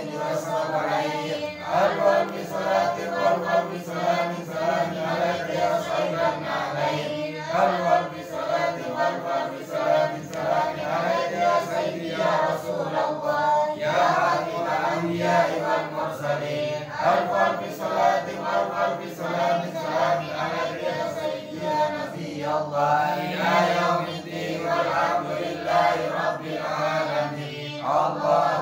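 A group of men chanting Arabic sholawat together without instruments: sung salutations to the Prophet, read from printed sheets.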